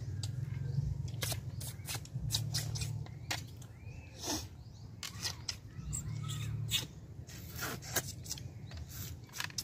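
People sucking and slurping the meat out of cooked horn snail shells, with many short sharp clicks and sucks from the shells and from spoons on plates. A low drone comes and goes behind them.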